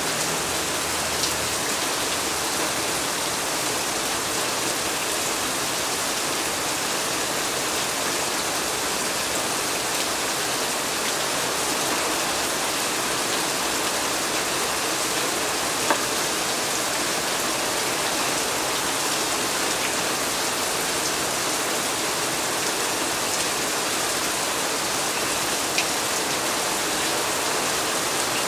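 Heavy rain falling steadily onto paving and wet surfaces, a dense even hiss. A single sharp tap about halfway through and a fainter one near the end.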